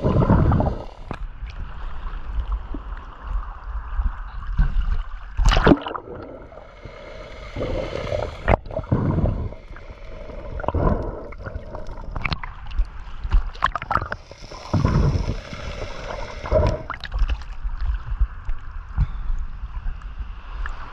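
Water sloshing and gurgling close to the microphone, in irregular surges over a steady low rumble.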